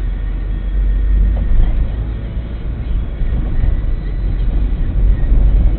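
Car engine and road rumble heard from inside the cabin through a dashcam microphone as the car pulls away and gathers speed.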